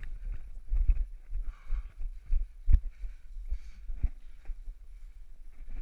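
Thumps, knocks and rubbing from climbing through a timber-and-steel-pipe obstacle, picked up close by a body-worn camera, with a sharp knock about halfway through.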